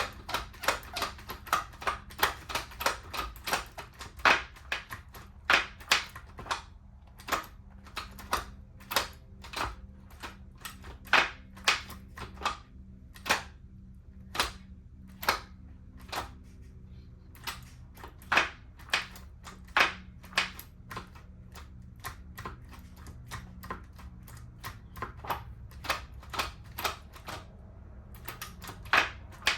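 A long run of sharp, irregular clicks and taps, about two or three a second with short pauses, over a faint steady low hum.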